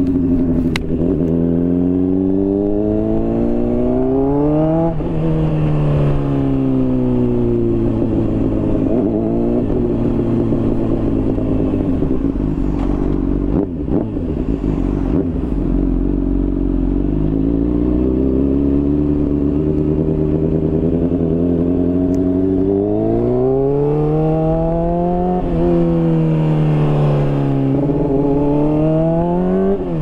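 2017 Honda CBR600RR's inline-four with a slip-on exhaust, accelerating through the gears with a quick upshift about five seconds in. The revs then fall away for several seconds as the bike slows. It pulls hard again through the second half, with two more quick upshifts near the end.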